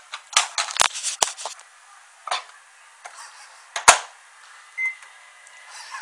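Clattering knocks as a cloth sailor hat is handled and put into a microwave, then a loud clunk of the microwave door shutting and, about a second later, a short high beep from the keypad as it is started. Thin sound with no low end, as from a phone's microphone.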